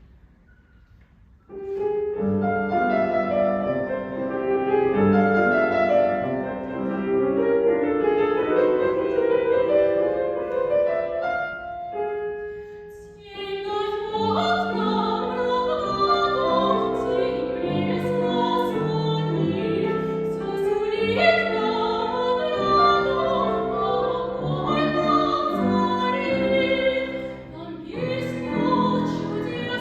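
Classical art song: a piano starts playing chords about a second and a half in, and about thirteen seconds in a trained female voice begins singing in operatic style over the piano accompaniment.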